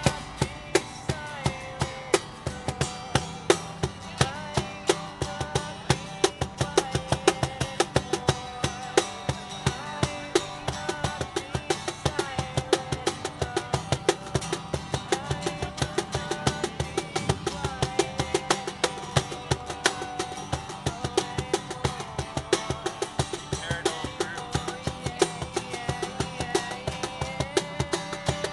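Acoustic guitar and a Meinl cajón played together, the cajón slapped by hand in a steady, busy rhythm under the guitar's chords.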